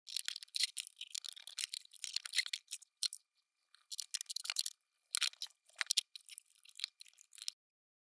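Sheet-metal power-supply cover and case being handled and fitted back together: irregular scraping and rattling in short bursts, stopping near the end.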